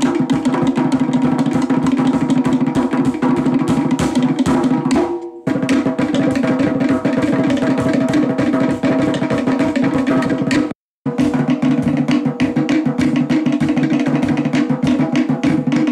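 Fast Polynesian drumming, a dense run of rapid drum strikes. It dips briefly about five seconds in and cuts out completely for a moment about eleven seconds in.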